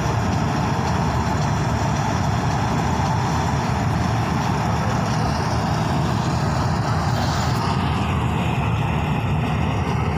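Two combine harvesters running steadily while harvesting, a continuous engine and threshing drone.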